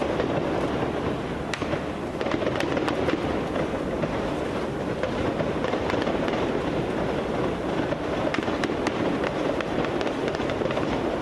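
Heavy gunfire echoing: scattered sharp gunshots, several coming in quick clusters, over a steady rumbling background noise.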